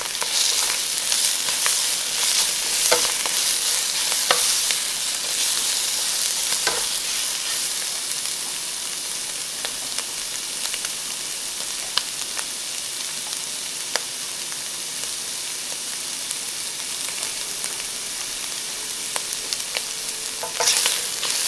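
Raw shrimp sizzling in hot oil in a nonstick wok with sliced Chinese sausage. For the first several seconds it is stirred, with the spatula scraping and tapping the pan; then it fries untouched with a steady sizzle, and the stirring starts up again near the end.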